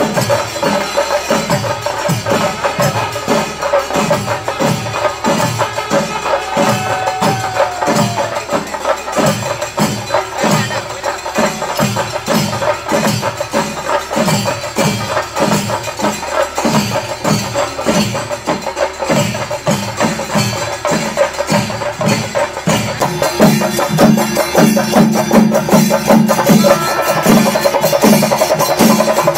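Kerala temple festival percussion, chenda drums played fast and continuously, with a deep stroke about twice a second under dense rapid stick strokes and a steady held tone above. About three-quarters of the way through, the deep strokes grow fuller and louder.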